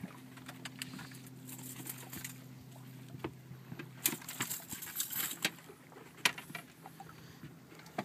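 Landing net and a netted fish knocking and rattling as the catch is brought aboard a fishing boat, with sharp knocks about four and six seconds in. A boat motor hums steadily underneath and fades after about three seconds.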